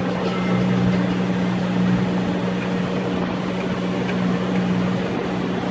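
John Deere 5083E tractor's four-cylinder diesel engine running at a steady speed, a constant low drone with no change in pitch.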